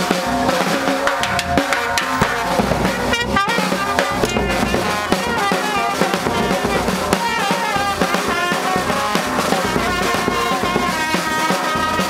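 School brass band playing a tune: trumpets and a trombone over snare and bass drums keeping a steady beat.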